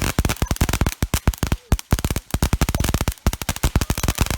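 Consumer fireworks crackling: rapid sharp pops, about ten a second, in runs broken by brief pauses.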